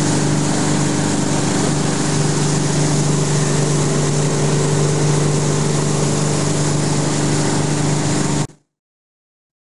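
Tow boat's engine running steadily at towing speed, a constant drone over the rush of water and wind. The sound cuts off suddenly about eight and a half seconds in, leaving silence.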